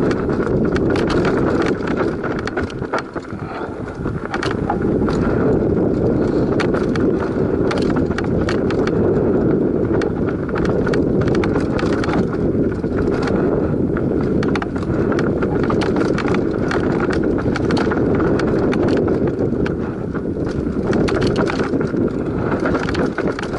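Mountain bike ridden fast down a loose dirt and rock trail: a steady rush of tyre noise and wind on the microphone, with the bike rattling in constant clicks and knocks over the rough ground. The sound eases briefly about three seconds in.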